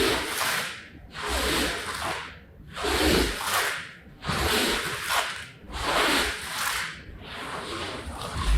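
A cleaning tool worked over a rug in long, regular strokes, about six of them, each a rasping, rubbing swish.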